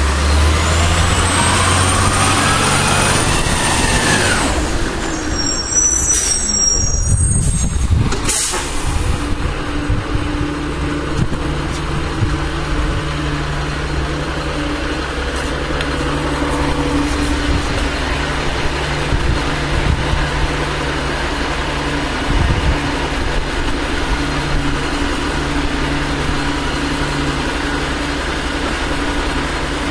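A 1996 Volvo WX64 garbage truck's diesel engine runs hard with a rising whine for the first few seconds. An air brake then squeals and hisses about six to eight seconds in, and the engine settles into a steady idle.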